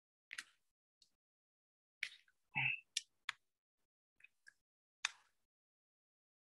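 Scattered short clicks and taps, about nine in all, with dead silence between them. The loudest is a slightly longer, fuller knock about two and a half seconds in.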